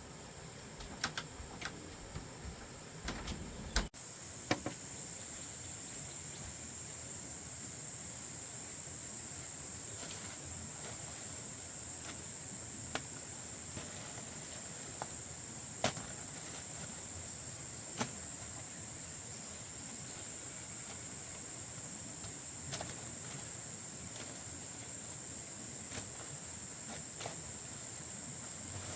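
A chorus of insects, crickets or cicadas, keeping up a steady high-pitched drone that starts abruptly about four seconds in. Scattered soft clicks and knocks come and go throughout.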